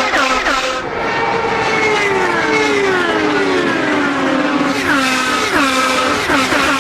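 IndyCar race cars passing at full speed. A high-revving engine note falls slowly over a few seconds, then from about five seconds in several cars go by in quick succession, each with a sharp drop in pitch as it passes.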